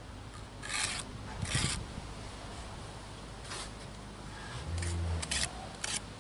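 Steel brick trowel rasping against brick and mortar in two scraping strokes near the start, then a shorter scrape, as excess mortar is trimmed from a freshly laid brick. Around five seconds in, a few sharp clicks as a brick is picked up, over a brief low hum.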